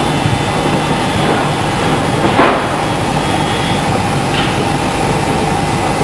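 Steady loud rushing noise with a faint high steady tone running through it, and a short louder swish about two and a half seconds in.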